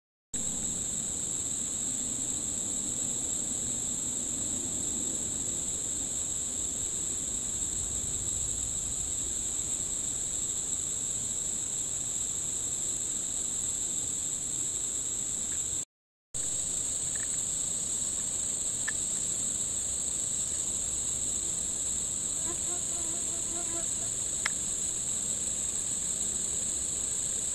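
Steady high-pitched insect chorus of crickets or cicadas droning without a break, cutting out for a moment about halfway through.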